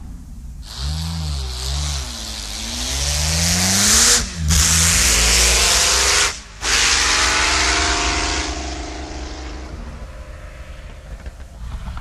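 Auto Union Typ C's supercharged six-litre V16 engine, blipped up and down a few times and then accelerating hard, with two short breaks for gearshifts about four and six and a half seconds in; the sound then fades away.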